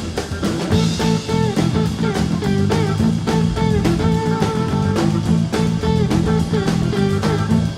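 Background rock music with electric guitar, bent notes over a steady bass and drum beat.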